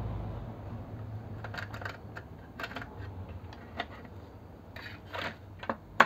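A long screwdriver backing screws out of a car head unit's steel chassis and heatsink: scattered small metallic clicks and ticks, with one sharper click near the end.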